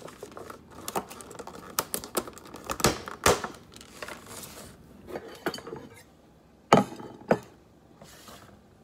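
Clear plastic cheesecake container, plate and cutlery being handled on a kitchen counter: a run of clicks and light rustling, with sharp knocks about three seconds in and again twice near seven seconds.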